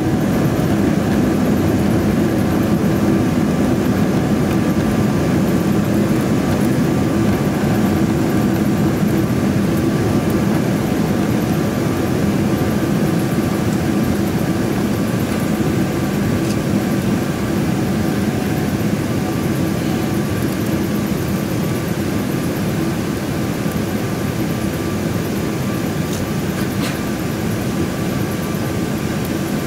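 Steady cabin noise inside a Boeing 777-300ER, heard over the wing during the descent: an even rush of air with the hum of its GE90 engines and a few steady thin whining tones. It gradually eases a little.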